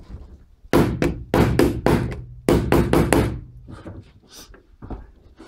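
A hammer tapping a flat pry tool in under thin aluminium cladding, driving it along the timber frame toward a nail. A quick run of sharp taps comes between about one and three and a half seconds in, followed by a few fainter taps.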